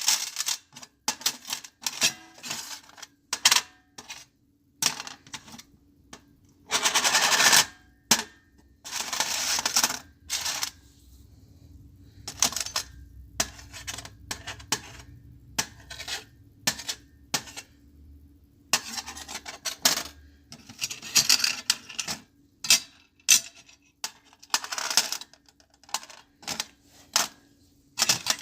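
Small metal objects clinking and clattering on a metal tray: irregular sharp clinks, with several longer rattling spells, the first about seven seconds in, and a brief lull about eleven seconds in.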